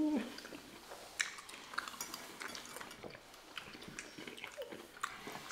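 Close-miked eating sounds: people chewing, with small wet mouth clicks and scattered light ticks.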